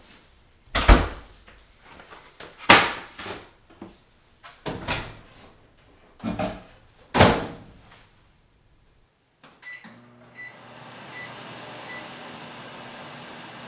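Several sharp knocks and clatters as kitchen cabinet and microwave doors are opened and shut, then a few short keypad beeps and an over-the-range microwave oven starts running with a steady hum.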